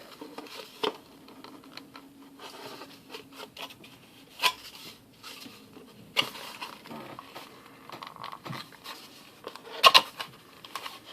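Fingerboard truck packaging being handled and opened, with scratching and crinkling and a few sharp clicks; the loudest clicks come as a pair near the end.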